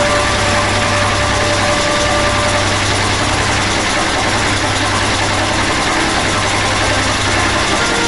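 Old tractor engine idling steadily, with a deep, even drone.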